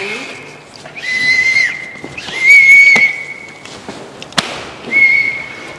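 A whistle blown three times at one steady high pitch: a short blast, a longer one, then another short one near the end. A couple of sharp clicks fall between the blasts.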